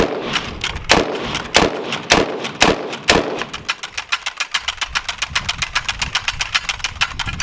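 Homemade rotating multi-rifle 'minigun' firing at a concrete wall: separate shots about two a second, each echoing, then speeding up a little past halfway into a fast, even stream of roughly ten shots a second.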